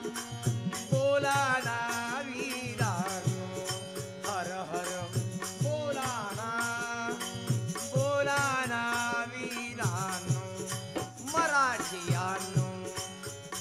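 Marathi kirtan music: a voice sings the devotional refrain, with 'bolana' sung about a second and a half in and further sung phrases every couple of seconds. Underneath are a steady drone, regular drum beats and a rattle.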